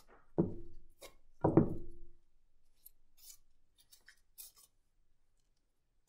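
Butter knife scraping almond butter onto a cardboard toilet-paper tube. Two louder strokes come about a second apart near the start, each with a short low ring, then faint scratching.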